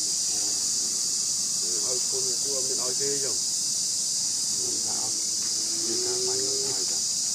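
Outdoor insect chorus, a steady high-pitched drone that runs unbroken, with faint human voices talking in the background twice.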